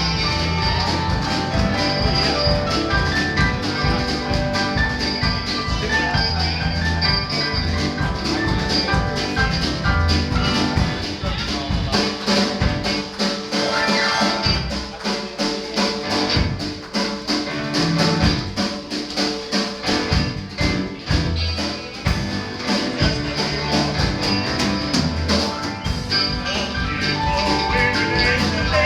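Instrumental music with a drum beat and pitched instruments playing notes, without singing.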